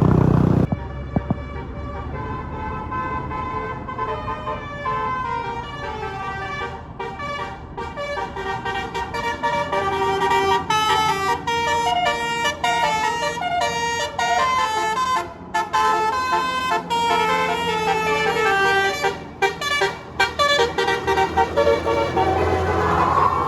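Bus telolet horn, a multi-tone basuri air horn, playing a tune as a quick run of short notes that step up and down in pitch, several tones sounding together with brief breaks between phrases.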